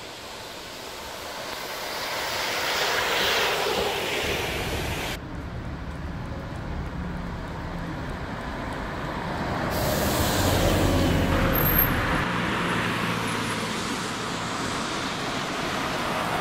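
Scania Citywide 12LF city buses driving past in three separate passes, with abrupt changes about five and ten seconds in. The first bus swells to its loudest about three seconds in, with tyre hiss off a wet road; the later ones carry a steady low engine hum that rises as each bus comes past.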